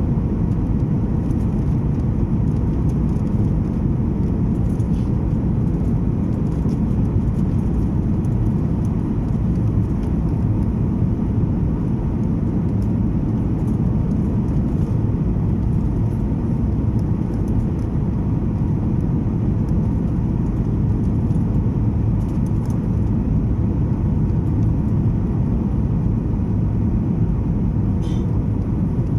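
Boeing 737 MAX 8 airliner cabin in flight: a steady rush of airflow and engine hum, with a faint constant tone above it.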